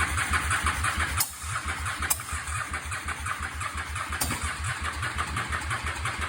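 Honda Shadow VLX V-twin being cranked by its electric starter motor, turning over rhythmically without catching. There are a few sharp clicks along the way. The engine does not start, which the owner puts down to a battery without enough charge.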